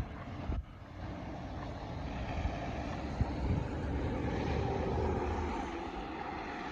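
A car passing on a snow-covered street: a rush of tyre and engine noise that swells after about a second, peaks in the middle, and eases slightly toward the end.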